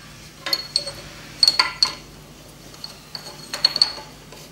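Metal bracket clinking and tapping against the milling machine's casting and a carbon fibre plate as it is offered up to test its fit: several light metallic clinks with a short ring, in three small clusters.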